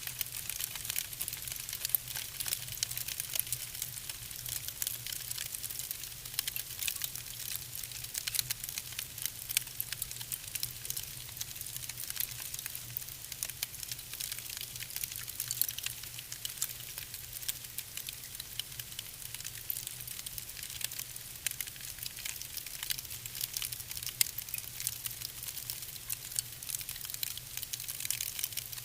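Wood fire crackling in a fireplace: a dense, irregular stream of sharp pops and snaps over a low steady hum.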